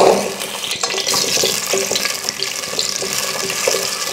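Hot cooking oil sizzling with a steady hiss as food goes into it, with a few faint clicks.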